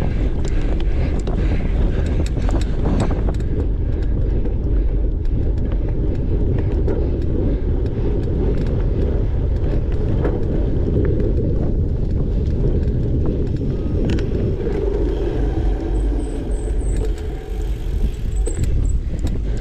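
Cyclocross bike ridden fast over a dirt course: a steady low rumble of wind and tyre noise on the bike-mounted microphone, with frequent small clicks and rattles from the bike.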